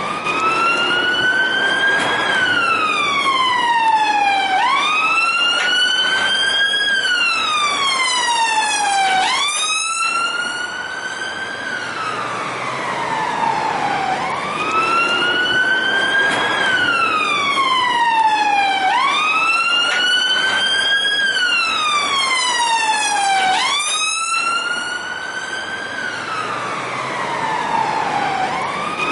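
Police siren wailing: a single tone slowly rising and falling over and over, each sweep taking a few seconds, with a quick jump back up at the bottom of some falls.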